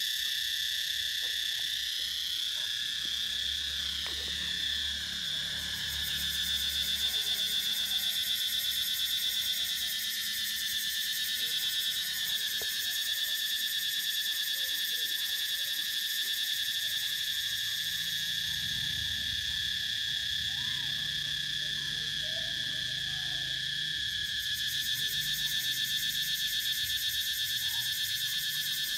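A steady, high-pitched insect chorus droning without a break.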